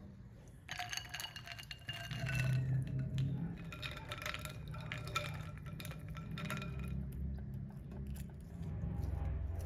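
Quail eggs, ice cubes and a silicone spoon clinking against a glass bowl of ice water, with many quick knocks that leave the glass ringing, starting about a second in and thinning out after about seven seconds.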